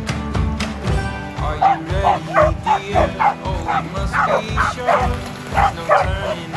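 Dogs barking over background music with a steady beat, about two or three short barks a second.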